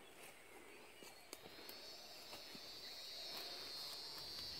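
An insect's steady high-pitched buzz starts about a second in, grows louder, and stops abruptly. A few faint clicks and crackles sound under it.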